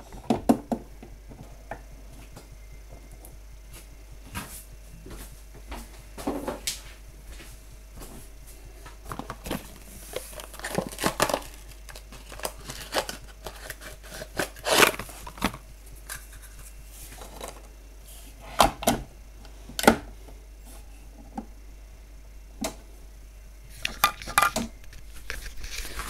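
Irregular knocks, clicks and rustles of handling: the camera being set down and fumbled against a cardboard box while things are moved about on a kitchen counter. The loudest knocks come about 15 and 20 seconds in.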